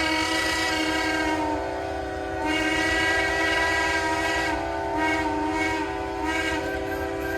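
Many steam whistles blowing together in a whistle blow, making a dense chord of steady tones. Some whistles warble as their valves are worked, and another group comes in about two and a half seconds in.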